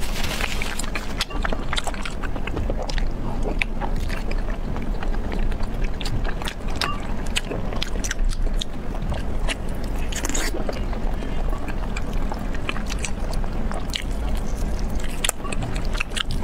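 Close-miked chewing and biting of sticky braised trotter meat: wet mouth sounds with many short, sharp clicks and smacks, over a steady low hum.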